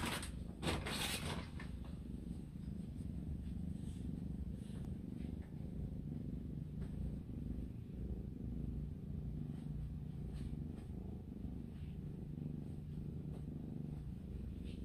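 Cat purring steadily while being stroked, with a brief rustle of hand on fur near the start.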